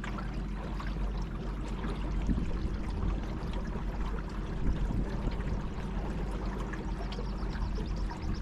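River water splashing and trickling, with a steady low hum underneath.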